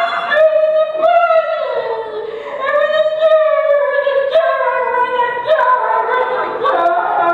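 A high voice singing unaccompanied, holding long notes that slide up and down in pitch.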